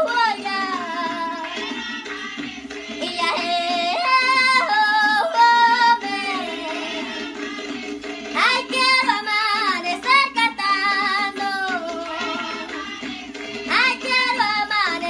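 A girl singing a Panamanian tamborito, in long phrases with a wavering vibrato and short breaks between them.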